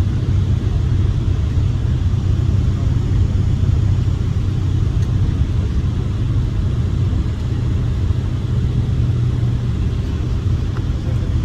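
MCI motorcoach driving, heard from inside the passenger cabin: a steady low rumble of diesel engine and road noise with an even drone.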